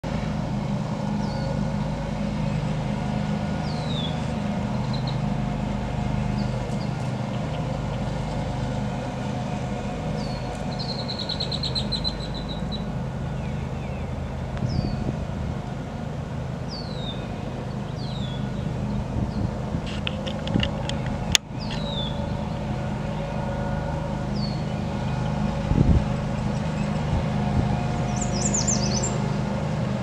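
Yellow warbler and other songbirds calling: short high down-slurred notes every couple of seconds, a rapid trill about eleven seconds in, and a quick run of high notes near the end, all over a steady low rumble. A single sharp click about twenty-one seconds in.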